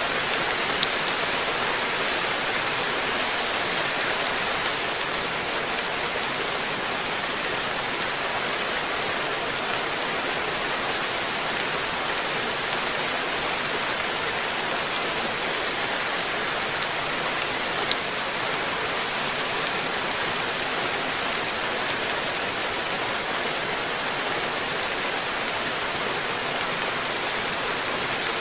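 Steady rain falling on a garden koi pond: an even hiss of drops, with now and then a single louder drop tick.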